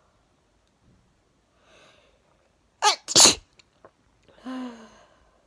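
A person's sneeze brought on by chhinkni sneezing powder: a breath drawn in, then a loud explosive sneeze in two quick bursts about three seconds in, followed by a short voiced sound falling slightly in pitch.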